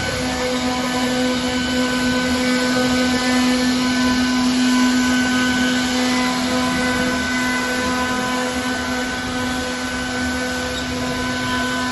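CNC router running: a steady motor whine held at one constant pitch over a rushing hiss.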